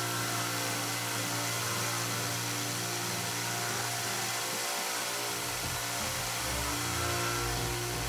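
Belt/disc combination sander, spinning at about 3400 RPM with a 400-grit silicone carbide belt, running steadily as it sands down the tip of a golf club shaft to prep it for the clubhead.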